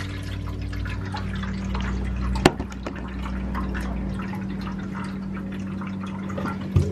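Tap water running slowly into a container, a thin steady stream that doesn't run any faster, over a steady low hum. A sharp click about two and a half seconds in and a thump near the end.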